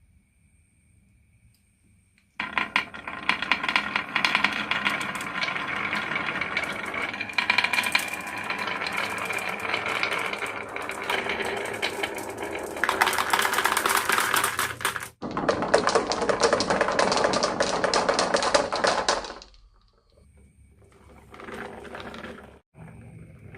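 Many marbles rattling and clattering down a HABA marble run, a dense, rapid clatter that starts about two seconds in. It cuts off abruptly around the middle, starts again, stops about four seconds later, and gives way to fainter, sparser rattling.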